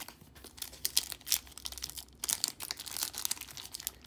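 A plastic trading-card pack wrapper being torn and crinkled open by hand: irregular sharp crackling with a few louder tears.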